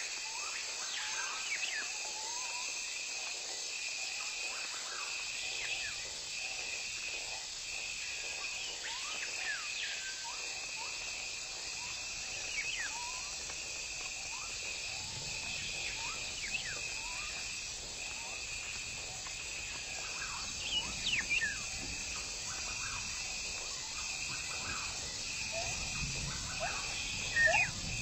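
Forest ambience: a steady insect chorus with a pulsing high buzz, and short chirping calls scattered throughout, a few louder ones near the end.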